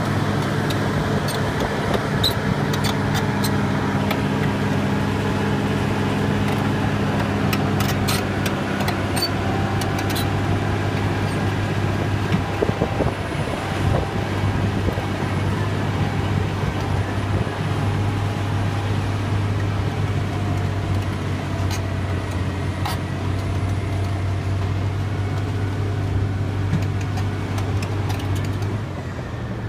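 Caterpillar D7R Series 2 crawler dozer's diesel engine running steadily as the machine pulls its multishank ripper through soil, with sharp clicks and clanks mostly in the first half. The engine eases slightly near the end.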